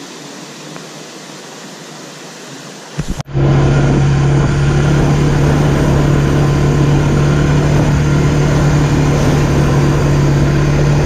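Stream water running, then about three seconds in a sudden cut to an ATV engine running at a steady speed, much louder, with a strong steady low hum.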